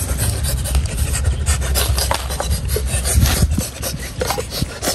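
Repeated raspy scraping and rubbing strokes from handling food and utensils, over a steady low rumble.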